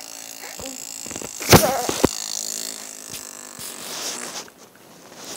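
Lips blown in a raspberry, a wet, fart-like buzzing sound, loudest in one burst about a second and a half in.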